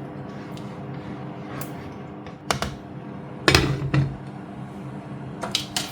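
Kitchen utensils knocking and clinking against cookware while ingredients go into a pot, a few sharp knocks with the loudest about three and a half seconds in, over a steady low hum.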